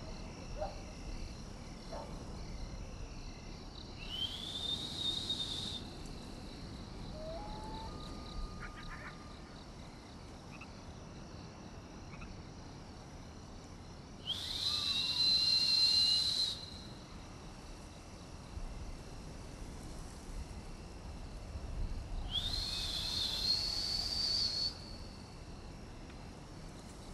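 A person whistling three long notes with long pauses between them; each note slides up and then holds for about two seconds. A steady chorus of night insects runs underneath.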